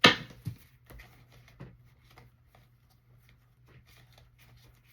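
Tarot cards being handled on a table: a sharp slap of cards right at the start, two softer taps soon after, then faint scattered ticks and rustles over a steady low hum.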